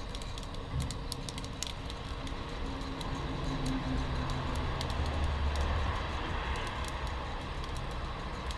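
Coffee beans in second crack inside a Zenroast ceramic hand roaster: quick scattered snaps, thickest in the first couple of seconds, over a steady hiss. The cracks are running together, the sign that the roast is nearly done and getting dark. A low rumble swells through the middle.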